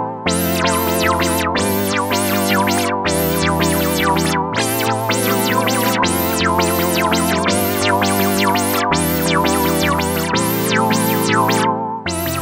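Clavia Nord Lead 2X virtual-analog synthesizer played as chords over a bass note, recorded straight from its line output. The chords change about every second and a half, and the filter sweeps open and shut in a steady pulse two to three times a second.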